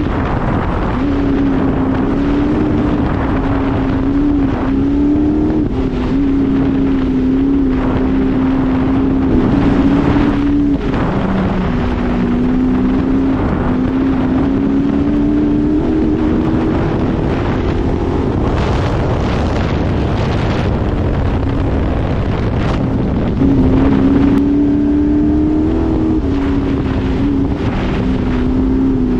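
An open off-road vehicle's engine runs steadily under way, its pitch stepping up and down with the throttle. Wind buffets the microphone throughout.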